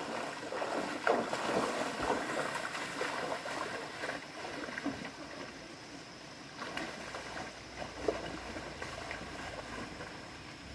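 Water splashing as two people wade through a shallow, rocky stream, over the stream's steady flow; the splashing grows fainter over the second half.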